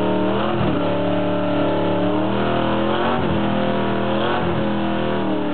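Motorcycle engine held at high revs while the rear tire spins and smokes in a burnout; the revs dip and climb again several times.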